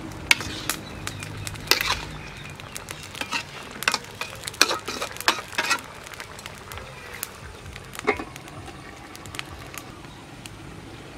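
Metal spatula scraping and clinking against a steel wok as eel pieces are stir-fried, with many quick strokes over the first six seconds. Fewer sounds follow, with one louder clank about eight seconds in.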